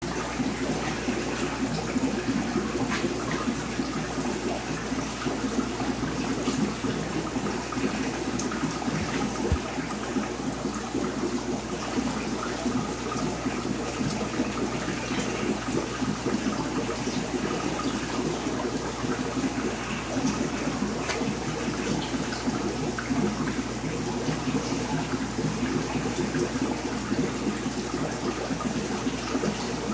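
Steady running and splashing water from an aquarium's circulation, with a low steady hum underneath.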